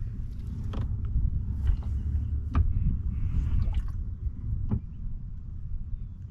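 Water lapping and dripping around a kayak, over a steady low rumble, with scattered light clicks and splashes and a short hiss about three seconds in.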